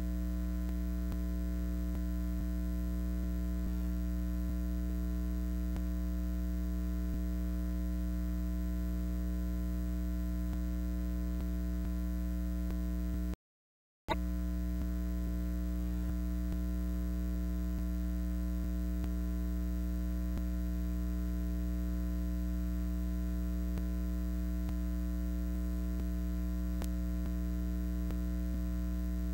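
Steady electrical mains hum, a low buzzing tone with its overtones, with no crowd or game sound over it. It cuts out to silence for about half a second a little under halfway through, then returns unchanged.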